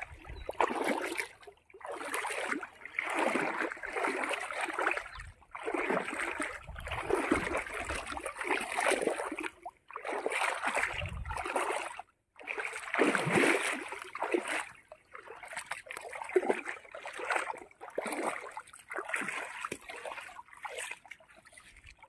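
Shallow pond water splashing and sloshing around wading legs and a fine-mesh drag net being hauled through it, in repeated surges a second or two long with short pauses between them.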